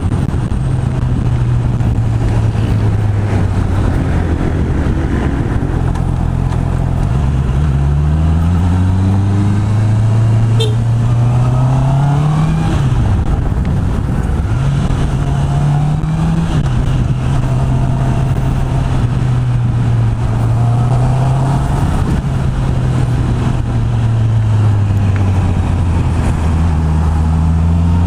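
Honda CB650R's inline-four engine through its stock exhaust while riding: the revs climb and drop back several times, as with accelerating and shifting gears, over a steady running note.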